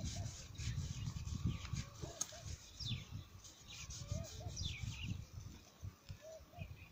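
Low, uneven rumble of wind on the microphone, with faint short bird chirps now and then.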